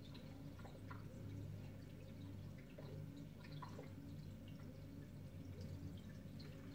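Marine aquarium running: a faint, steady low pump hum with small water drips and plinks scattered through it.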